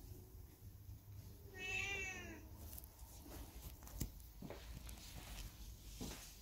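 A cat meows once, a single call lasting just under a second that bends slightly in pitch. About two seconds later there is one sharp tap.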